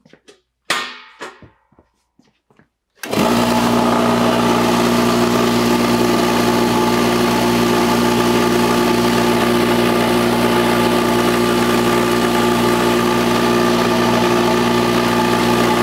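Single-cylinder oil-free (oilless) air compressor switching on abruptly about three seconds in and then running steadily and loudly, a hard mechanical din with a steady whine in it, reading around 110 dB on a phone sound meter held beside it. Before it starts there are only a few faint knocks.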